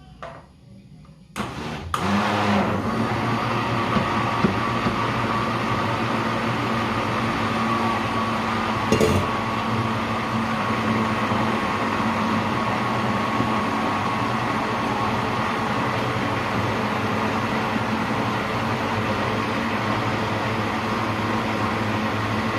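Electric blender switched on about a second and a half in and running steadily as it mixes a thick pizza dough batter, with a single brief knock partway through.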